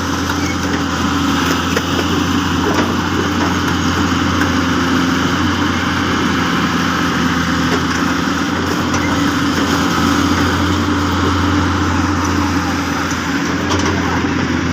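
Hyundai excavator's diesel engine running steadily, with a constant low drone.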